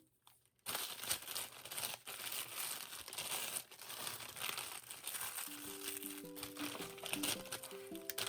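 Dense crinkling and crackling noise that starts after a brief silence, made of many small crackles. Soft background music with held notes comes in about five and a half seconds in.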